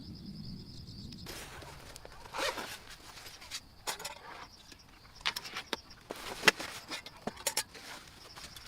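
Tent zipper and fabric rustling in irregular strokes, with one sharp click about six and a half seconds in, over a steady chirping of crickets.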